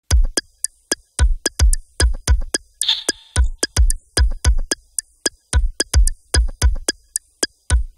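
Ambient techno opening on a drum machine beat alone: deep kick drums and sharp clicky percussion in a syncopated pattern of about two to three hits a second, with a brief hiss of noise near three seconds in.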